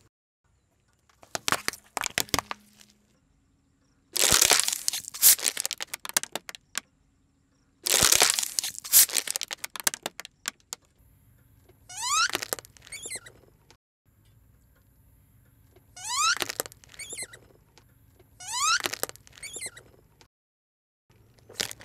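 A car tyre slowly crushing objects one after another on asphalt: several bursts of cracking and crackling, among them a plastic water bottle collapsing. Later come a few short rising squeaks as a rubbery toy ball is squashed.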